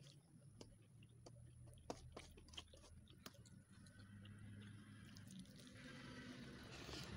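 Faint chewing and mouth clicks from eating rice by hand, with scattered sharp ticks from the fingers and food against the steel plate. A faint hiss builds up over the last couple of seconds.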